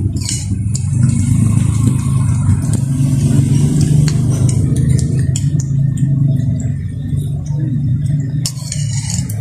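A steady low motor drone, with light clicks of a metal spoon against a bowl now and then.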